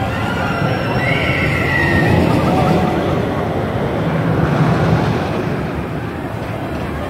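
California Screamin' steel roller coaster train running along its track, a rumble that swells over a few seconds and then fades, with a brief high cry about a second in.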